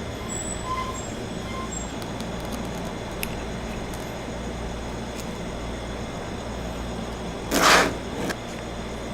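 Steady background noise, with one loud, brief scrape about seven and a half seconds in, typical of handling the phone's packaging during an unboxing.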